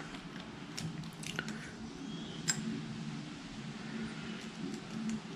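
A few light metallic clicks and ticks, the sharpest about two and a half seconds in, as an Allen key works the set screws of an Urmosi thumb throttle on a quad's handlebar. A steady low hum runs underneath.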